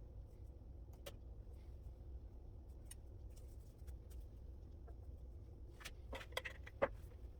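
Faint, scattered clicks and light metal clinks of hand-tool work on a steel vise part, with a few sharper knocks near the end, over a steady low hum.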